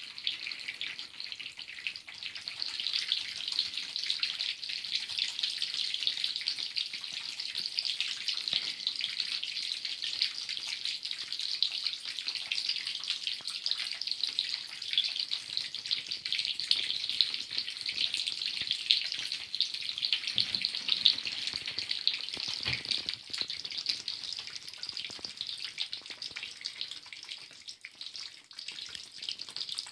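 Drip waterfall running: water falling as a dense shower of droplets, a steady fine splashing patter with no let-up.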